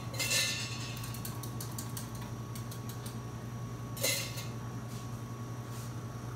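Clinks, clicks and short clatters of café ware being handled at an espresso machine while a mocha is made, over a steady low electrical hum.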